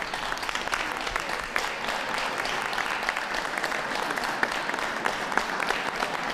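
Audience applauding, many hands clapping in a steady, even patter.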